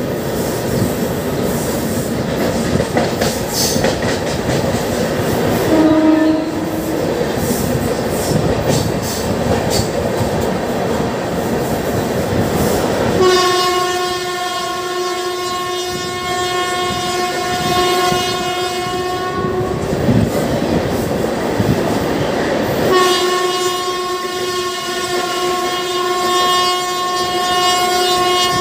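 Train running along the line, its wheels rumbling and clacking on the rails. A train horn sounds two long steady blasts, one from about halfway through lasting some six seconds and another near the end lasting about five, after a brief low hoot about six seconds in.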